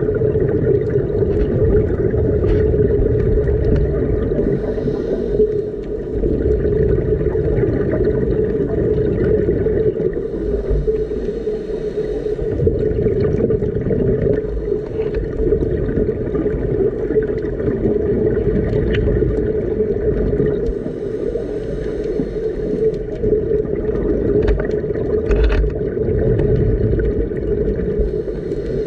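Underwater sound on a scuba drift dive: a steady muffled rumble with a constant hum, and several bursts of fizzing exhaled bubbles from divers' regulators.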